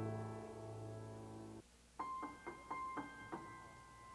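Soft background piano music: a held chord fades out, then a short phrase of single struck notes follows about halfway through.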